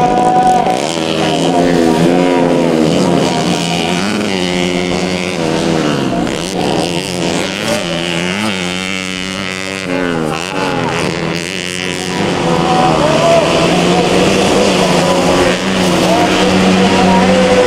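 Modified four-stroke underbone (bebek) motorcycle engines racing on a dirt track, their pitch rising and falling again and again as the riders rev through the straights and back off for the corners.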